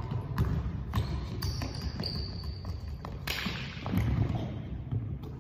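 Basketball bouncing on a hardwood gym floor as it is dribbled, irregular thuds about twice a second that echo in the large hall. A high, steady squeak lasts about a second and a half in the middle.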